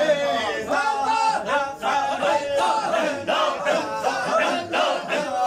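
A group of men chanting together in a devotional gathering, many voices rising and falling at once.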